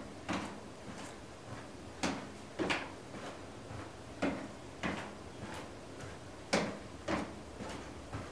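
Feet stepping up onto and down off a low exercise step at a steady pace: a louder pair of footfalls about every two seconds, with softer steps in between.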